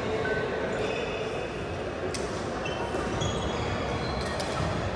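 Badminton play in an indoor sports hall: a few sharp racket hits on the shuttlecock and short, high squeaks of shoes on the court floor, over a steady hall hum.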